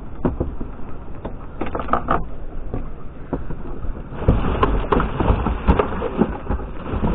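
Rubbish being handled and rummaged through in a bin: scattered knocks and clicks over rustling, getting busier and louder about four seconds in.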